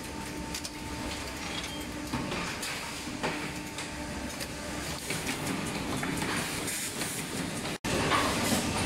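Steady machine noise of vertical injection moulding machines running on a cable factory floor, a constant hum with a faint tone over it and scattered light clicks and rattles as cables are handled at the mould. The sound cuts out for an instant near the end.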